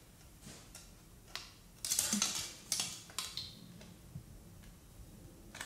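Plastic hull halves of a 1:700 Revell Bismarck model kit clicking and knocking against each other as they are test-fitted by hand: a few small sharp clicks and taps, the loudest about two to three seconds in.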